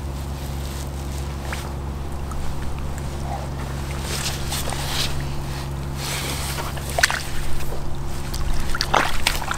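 River water sloshing and splashing as a freshly landed barbel is held in the water to recover, with short, sharper splashes about four to five, seven and nine seconds in. A steady low hum runs underneath.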